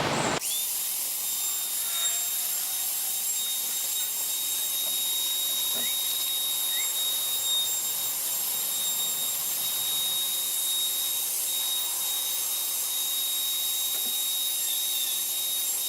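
Router spinning a 3/16-inch round-over bit, running steadily with a constant high whine while rounding over the edge of a cedar tray.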